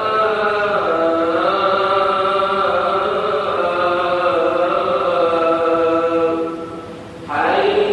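A muezzin chanting the Friday call to prayer (adhan) in long, ornamented held notes. One phrase fades out about six and a half seconds in, and after a short breath a new phrase begins with a rising slide.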